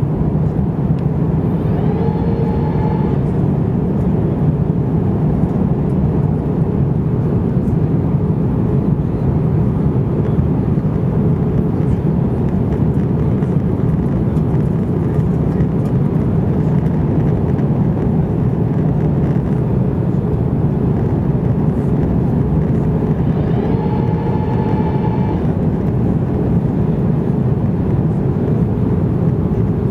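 Steady cabin noise of an Airbus A330-200 on its landing approach, heard from a window seat over the wing: a loud, even rumble of engines and airflow. Twice, about two seconds in and near the end, a short whine rises and holds for a second or so.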